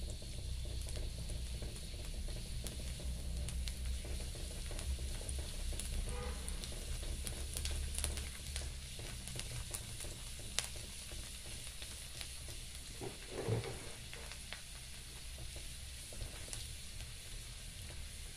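Minced garlic sizzling in hot oil in a wok, stirred with a spatula that scrapes and taps against the pan now and then. A louder scrape comes about 13 seconds in.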